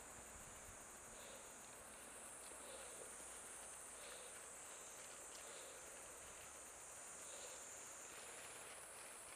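Faint, steady high-pitched insect buzzing from the surrounding vegetation, with softer calls repeating about every second and a half.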